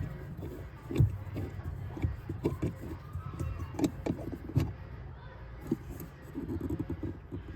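Scattered light knocks and clicks of hands working hardware on the dinghy over a steady low rumble.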